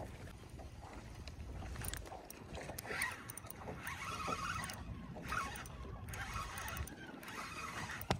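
Water lapping against a fishing boat's hull with a low rumble of wind, and from about two seconds in, scattered clicks and handling noise from a spinning reel being worked.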